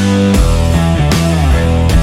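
Background rock music with distorted guitar and a steady beat.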